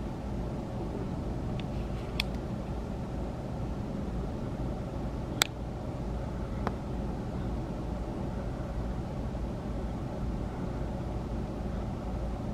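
Freight train rolling past with a steady low rumble, heard through the hotel window glass, with a few short sharp clanks, the loudest about five and a half seconds in.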